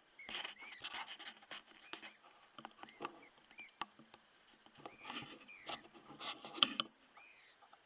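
Irregular rustling and crunching in dry vegetation, heaviest near the start and again from about five to seven seconds in, with faint short rising-and-falling chirps in the background.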